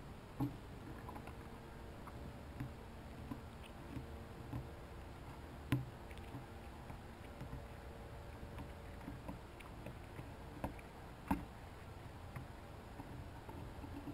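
Irregular small clicks and crunches, a few sharper than the rest, of chipmunks shucking kernels off corn cobs, over a faint steady low hum.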